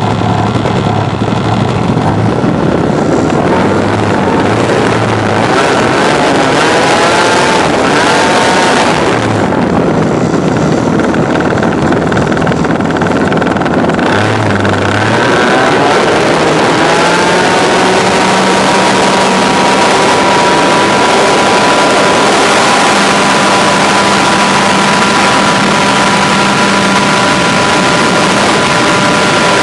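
An RC airplane's motor runs close to the microphone, its pitch gliding up twice as the throttle changes. From a little past halfway it holds a steady higher tone, with wind rushing on the microphone as the plane gets going and takes off.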